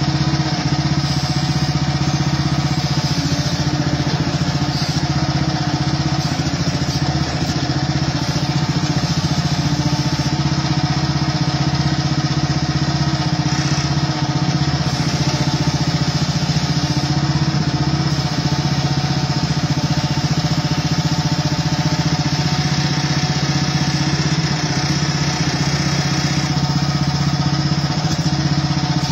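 Hightop HT10 mini excavator's engine running at a steady speed while the machine digs, with no change in pitch or level.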